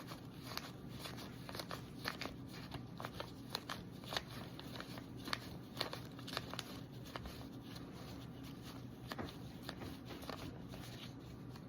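Paper money being handled and counted: a string of irregular crinkles and flicks of bills, over a steady low room hum.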